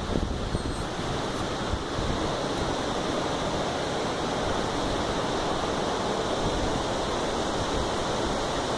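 Steady rushing of a rocky river's water flowing over rocks.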